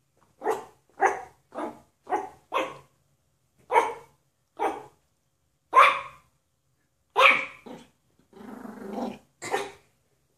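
Yorkshire terrier barking: about a dozen short, sharp barks at irregular intervals, some in quick pairs, with one longer, drawn-out sound about eight seconds in.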